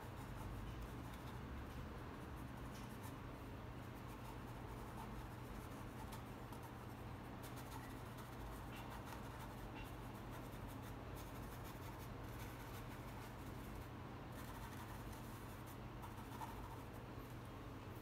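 Paintbrush loaded with acrylic paint brushed and dabbed on the painting surface: faint, irregular scratchy strokes over a steady low hum.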